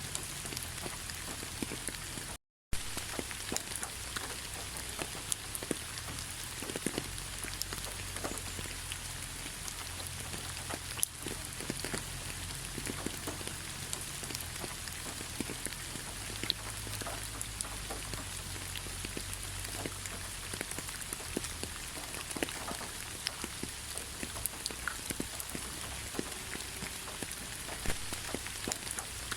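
Steady rain falling, with many individual drops ticking on a surface. The sound cuts out for a split second about two and a half seconds in.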